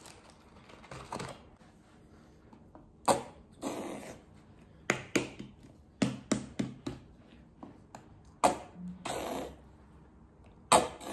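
Irregular sharp clicks and taps with a few short rustling stretches: a plastic squeeze bottle of sauce and paper and cardboard fast-food packaging being handled on a table.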